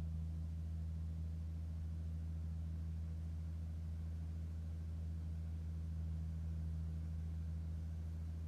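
Steady low drone of a Chrysler flathead six engine running an air compressor under constant load, holding an even speed while it supplies air for sandblasting.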